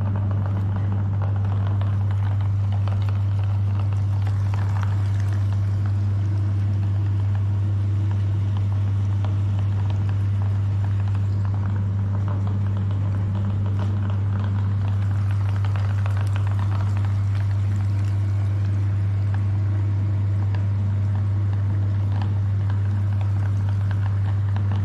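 Electric meat grinder running steadily with a strong low hum, with faint scattered crackles as it grinds ice cream.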